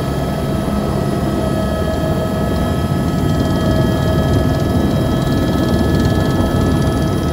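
Helicopter heard from inside its cabin: a loud, steady rotor and engine rumble with several steady whining tones on top. It grows slightly louder about three to four seconds in.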